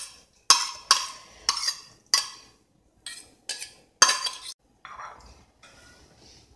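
A metal spoon knocking and scraping against a small bowl as coarsely ground green peas are scraped out into a stainless-steel mixing bowl. There are about eight sharp clinks over four seconds, then it goes faint.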